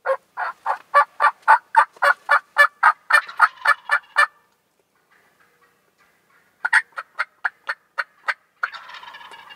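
Wild turkey yelps in a long run of about sixteen sharp notes, roughly four a second. After a pause of about two seconds, a shorter run of about eight follows. Near the end an Eastern gobbler gobbles with a rattling call.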